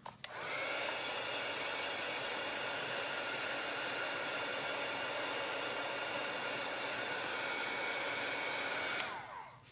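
Handheld craft heat gun blowing hot air over freshly applied chalk paste to dry it: a steady fan whir with a high whine. It switches on just after the start and is switched off about nine seconds in, its pitch falling as the motor winds down.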